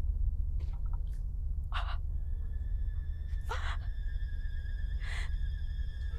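A girl gasping several times in short sharp breaths over a low steady rumbling drone. Thin high sustained tones of an eerie score come in about two seconds in and hold.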